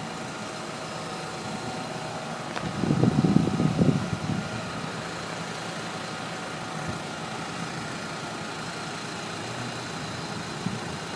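Steady hum of an idling engine, with a brief louder low rumble about three seconds in.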